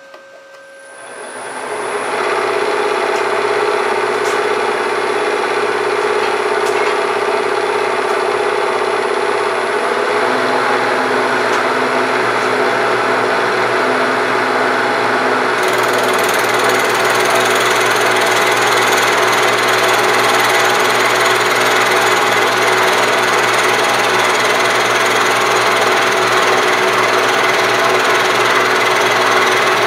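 Milling machine spindle spinning up, then an end mill cutting steadily along a metal part with a loud, steady machining noise. The cut grows harsher about halfway through.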